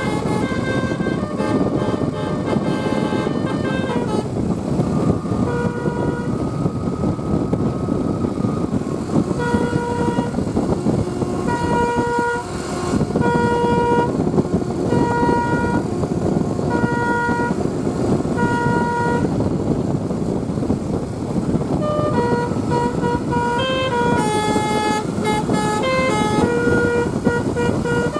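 Basuri 'telolet' multi-tone air horn on a bus playing tune patterns over the steady noise of the moving bus. Through the middle a short phrase repeats about once a second, and near the end a quicker run of changing notes follows.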